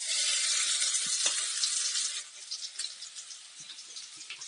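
Pounded garlic, fennel seeds and curry leaves hitting hot oil in a steel kadai and sizzling: a sudden loud hiss that settles after about two seconds into a quieter crackle with small pops.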